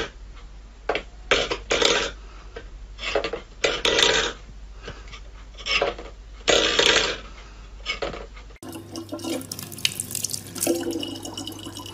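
A stainless-steel pet bowl pushed and scraped across a wooden floor by a cat's paw, in several short, loud clattering scrapes. About nine seconds in, this gives way to a kitchen tap running a steady stream of water into a plastic jug.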